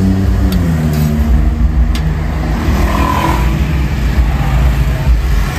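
A motor vehicle engine running close by: a low rumble whose pitch drops about half a second in and then holds steady.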